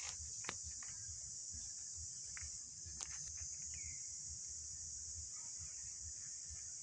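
Steady, high-pitched drone of a chorus of insects, cicadas or crickets, with a couple of sharp clicks, one about half a second in and one about three seconds in.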